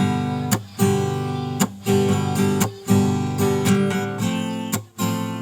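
Music of strummed acoustic guitar chords, the strumming broken by short pauses roughly once a second.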